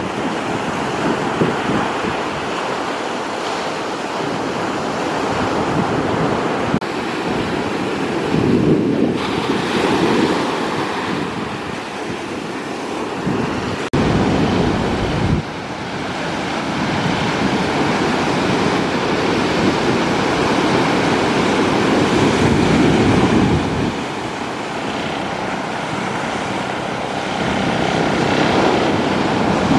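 Surf breaking in repeated surges, with wind buffeting the microphone. The drone of a small fishing boat's outboard motor runs under the waves as the boat comes in through the breakers.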